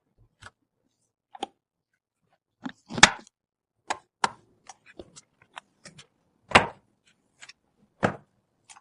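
Irregular sharp clicks, taps and knocks of computer parts being handled and fitted during a PC build, with silence between them. The loudest knocks come about three seconds in and again about six and a half seconds in.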